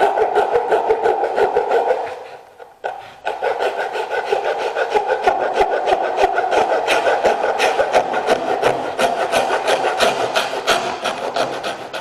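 Small hacksaw blade, held by hand, sawing through the thin wall of a plastic food-storage container in quick back-and-forth strokes, a rasping scrape that breaks off briefly about two seconds in and then resumes.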